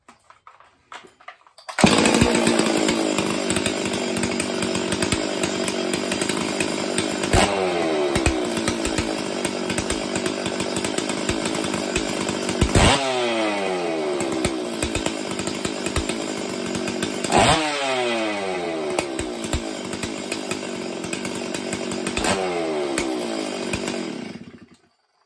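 Stihl 044 two-stroke chainsaw starting about two seconds in and running hard at high revs. Four times the throttle is let off, the revs fall away, and then it picks up again, before the saw is shut off near the end. This is a test run after a new OEM fuel filter, fuel line and tank vent, to check that the tank now vents properly.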